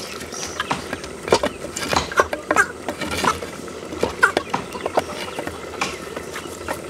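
Wood fire crackling in a clay cooking stove, with sharp, irregular snaps and pops over a steady hiss of burning.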